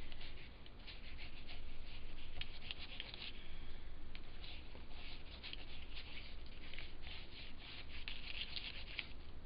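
Cloth rubbed and dabbed over embossed aluminium foil tape on cardstock: an uneven, scratchy, crinkly rustle of many short strokes.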